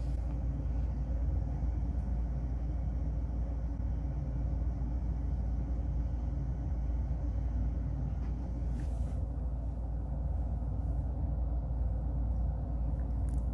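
A steady low rumbling hum, with a brief faint hiss about nine seconds in.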